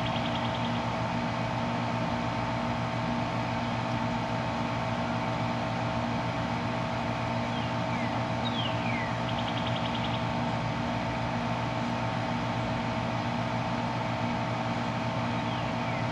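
Steady hum of a running central air-conditioner outdoor unit, its compressor and fan running with constant low and mid-pitched tones. A short series of high, falling chirps with a brief buzzy trill cuts in about eight seconds in and again near the end.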